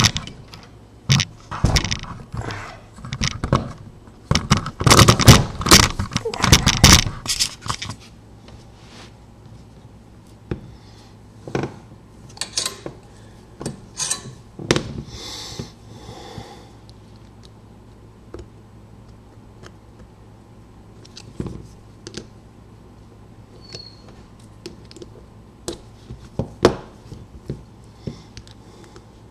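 Metal tools clicking, scraping and knocking against a Mul-T-Lock lock cylinder as it is taken apart after picking. There is a dense run of clatter for the first eight seconds or so, then only scattered single clicks and a few knocks.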